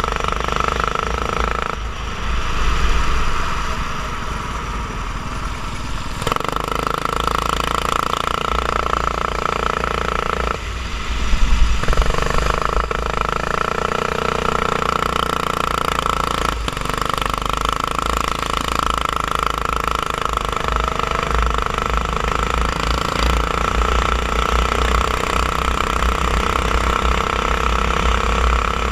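Racing kart engine running hard, heard from the kart itself; its steady high engine note drops away twice, about two seconds in and again about ten seconds in, then comes back.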